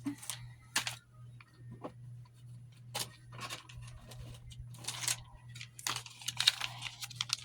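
Packets of sheet face masks being handled and gathered up: scattered clicks and taps with short bursts of packet rustling, thickest about five seconds in and again near the end.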